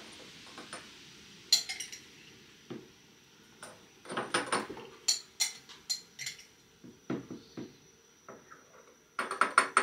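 Cutlery clinking and scraping against a bowl and small jars as the last of a thick paste is spooned out. Irregular short clinks and taps, busiest about four seconds in and in a quick cluster near the end.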